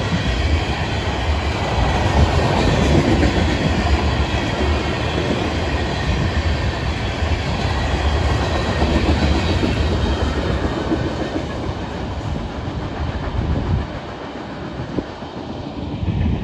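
Freight train tank cars rolling past close by, their steel wheels giving a steady rumble on the rails. The rumble drops away about three-quarters of the way through as the last cars go by.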